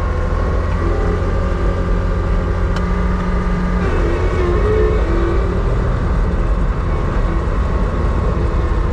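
Vehicle engine running with a heavy low rumble, heard from inside the cab as the vehicle drives. Its pitch steps up and down a few times.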